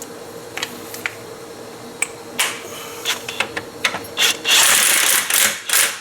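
Hand tools working on metal parts: scattered clicks and knocks, then a longer spell of fast rasping clatter near the end, over a faint steady hum.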